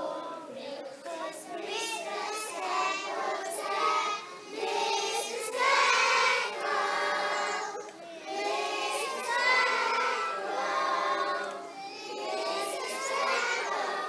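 A large group of young children singing together in unison, in phrases a few seconds long with short breaks between.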